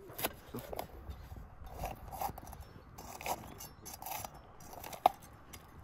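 Chef's knife slicing through crisp green bell pepper on a wooden chopping block: a series of irregular crunching cuts, with one sharp knock near the end.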